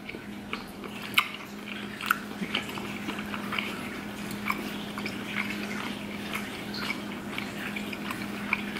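Wet chewing of boiled octopus tentacle, close to the microphone: a run of short, irregular mouth clicks and smacks over a steady low hum.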